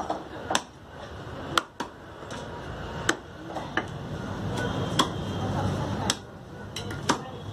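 A heavy knife chopping fish on a wooden chopping block: sharp single knocks at uneven intervals, about one a second, with voices in the background.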